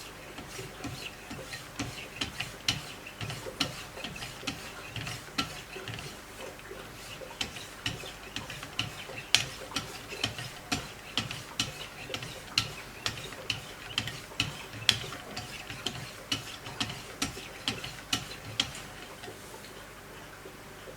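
Knife blade being sharpened on a Wicked Edge guided system: a steady series of scraping strokes, each ending in a sharp click, about two a second. The strokes stop near the end.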